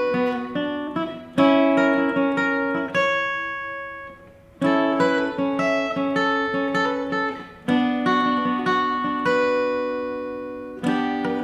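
Acoustic guitar played solo: a slow tune in which a strong chord is struck about every three seconds and left to ring and fade, with picked notes in between.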